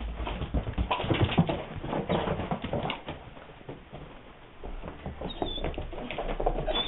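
Two dogs moving about close together: a run of irregular taps and scuffles, busiest in the first couple of seconds, with two brief high squeaks near the end.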